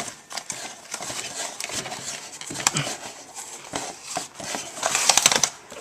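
Handling noises: scattered small clicks, taps and scrapes, with a quick run of rapid clicking about five seconds in.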